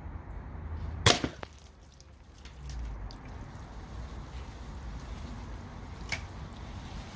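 .22 air rifle pellet striking a tin can on the target stand with a sharp crack about a second in, followed by a lighter knock as the can is knocked down. Another fainter sharp hit about six seconds in.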